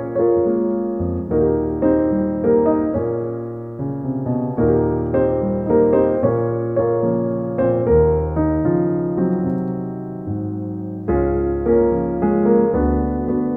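Piano music: a steady run of struck notes and chords, each fading away after it is played, with a muffled top end.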